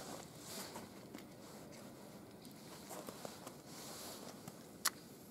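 Faint rustling of clothing and hand movements close by, with a few small ticks and one sharp click about five seconds in.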